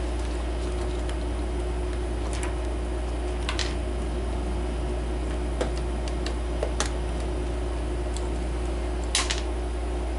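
Steady low hum, with a few short, sharp clicks and knocks scattered through it from multimeter test leads and wires being handled.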